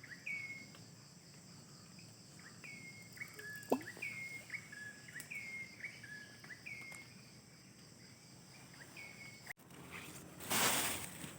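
A bird repeating a short two-note call, a falling note and then a lower flat one, over and over, against a steady drone of insects such as crickets or cicadas. The calls stop about nine seconds in, and a brief rush of noise follows near the end.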